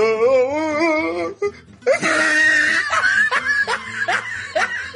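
Comedic laughter sound effect over a background music bed: a wavering, high-pitched held voice, then a run of short rising 'ha' laughs, about two to three a second.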